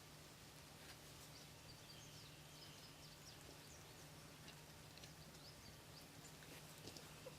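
Faint small birds chirping in short, scattered calls over a low steady hum, the whole thing close to silence.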